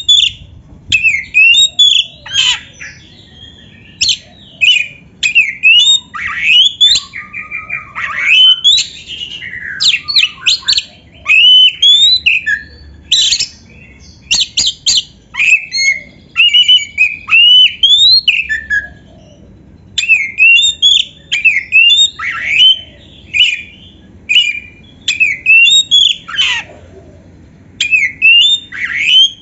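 Oriental magpie-robin (kacer) singing loudly: rapid, varied whistled phrases of rising and falling notes mixed with harsher calls, broken by short pauses. This is a masteran recording, played to caged kacer to get them singing.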